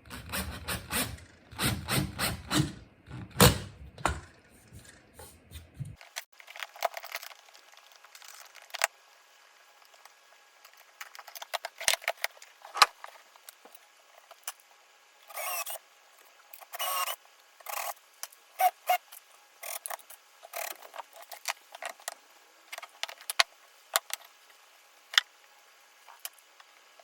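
Hand work with tools and parts: a quick run of clicks and knocks for the first few seconds, then scattered clicks, knocks and short scrapes.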